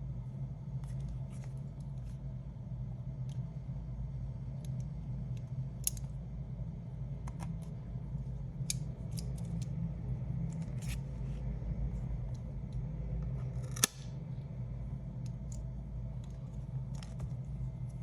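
Small sharp clicks and ticks of hand tools working on the opened iPad, scattered irregularly with one louder click about fourteen seconds in, over a steady low hum.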